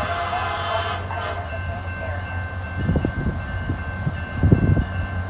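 Approaching SunRail commuter train sounding its horn in a short blast of about a second at the start, over a steady low rumble. Dull low bumps follow about three and four and a half seconds in.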